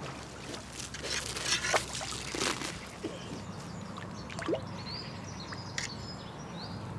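A hooked perch splashing and thrashing at the water's surface as it is played in close to the bank, repeated splashes, busiest in the first half.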